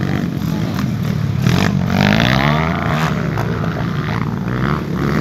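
Trail bike engines revving hard as the bikes race past, the pitch climbing and dropping as the riders open and close the throttle.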